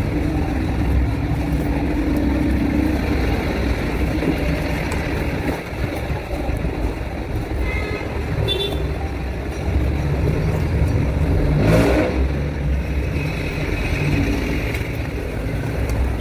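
Steady low rumble of street traffic, with a brief rustle about three quarters of the way through as a nylon backpack is handled.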